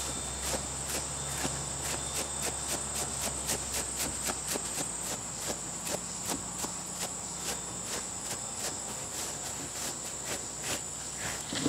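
Kong rubber grooming brush stroking a short-haired pitbull-boxer's coat, a soft rubbing swish repeated about two to three times a second at an uneven pace. A steady high hiss runs behind it.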